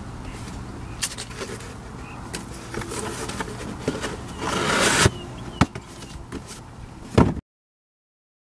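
Cardboard shipping box being slit open with a box cutter and its flaps pulled open: scrapes, clicks and rustling, with a louder rush of noise about four and a half seconds in. The sound cuts out to silence near the end.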